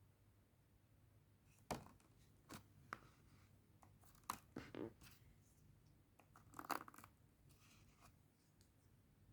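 Faint handling of a toy and its packaging: scattered small clicks and short rustles, strongest about two, four and seven seconds in.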